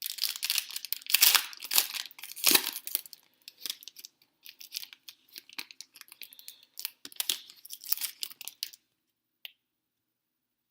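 Wrapper of a 2015 Panini Americana hobby pack being torn open and crinkled, loudest over the first three seconds. Lighter crinkling and rustling follow and stop a couple of seconds before the end.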